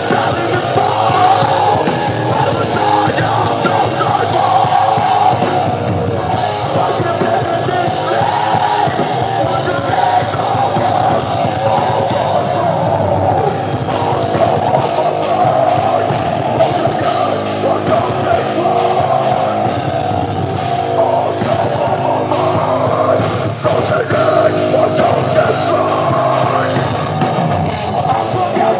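Metalcore band playing loud and without a break at a live club show: pounding drum kit and heavy, distorted djent-style guitars through the PA.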